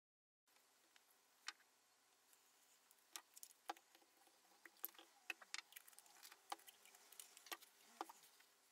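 Faint, irregular clicks and light knocks of small objects being handled and set down on a wooden table, about twenty in all.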